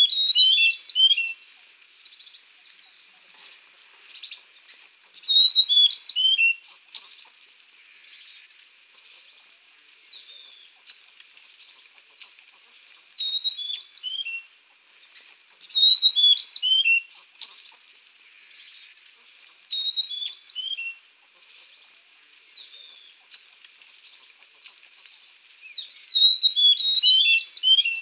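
A songbird singing short phrases of quick, falling chirps, repeated about every four to six seconds, with fainter chirps between phrases.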